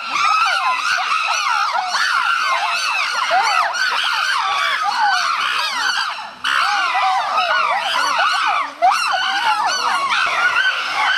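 Several chimpanzees screaming at once in a dense chorus of overlapping high, wavering screams, the calls of an attack by patrolling males on a stranger female and her infant.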